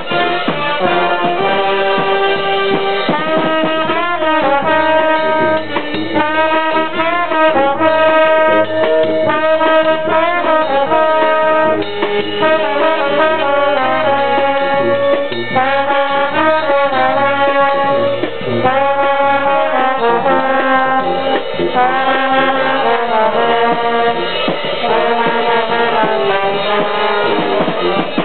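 Live brass band playing a tune, with trombones and other brass horns carrying the melody in phrases.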